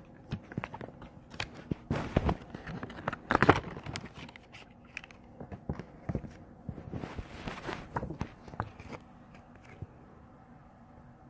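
Packaging being handled: irregular rustling, crinkling and small clicks and knocks, which die down near the end.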